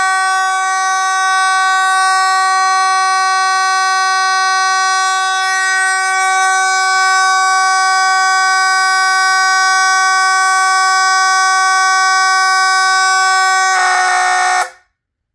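Space Age AV32-2DCD electromechanical fire alarm horn sounding a loud, steady, buzzy tone. Near the end it turns rough and rattly for under a second, then stops suddenly.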